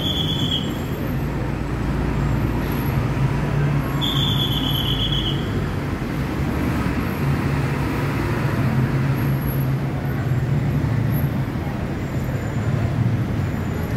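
Steady city road traffic from the multi-lane road below, a continuous low rumble of cars. A short high beep sounds at the very start and again about four seconds in.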